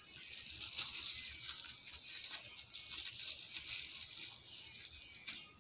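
Thin plastic bag crinkling and rustling in irregular small crackles as hands twist and tie it shut around hot agidi.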